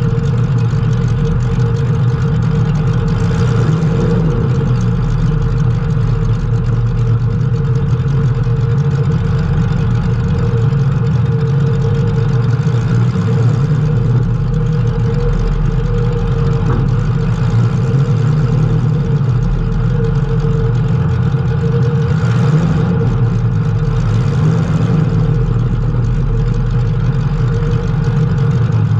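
Race car engine running steadily at low, even revs, heard from on board the car, with a steady whine over the engine note.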